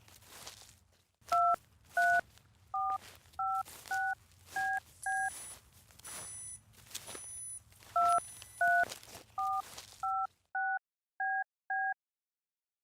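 Telephone keypad touch-tones: the same seven digits dialed twice, about two beeps a second, with a pause of about three seconds between the runs.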